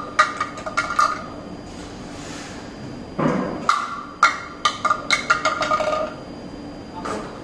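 An ultrasonically welded hard-plastic part dropped onto a hard factory floor in a drop test of its weld, clattering and bouncing in a quick run of sharp, ringing knocks. A second run of knocks comes about three seconds in, and one last knock near the end.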